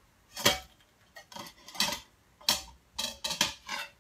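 Metal künefe plates clanking and scraping together as a künefe is flipped from one plate onto the other. A loud clank comes about half a second in, then a run of smaller knocks and clatters, some with a short ring.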